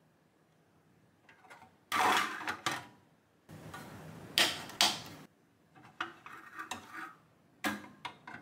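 Small rocker switch under a Lelit Mara X espresso machine being pressed by hand, giving a series of clicks and handling noises against the machine's steel body. The loudest click comes about two seconds in, with two more sharp clicks about halfway through and lighter ones near the end.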